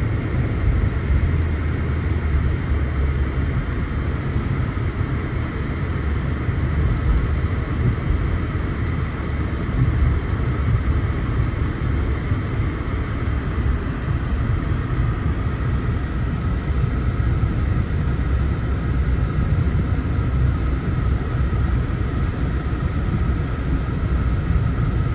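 Steady low road and engine rumble inside a moving Mercedes-Benz car's cabin, with a faint steady whine above it.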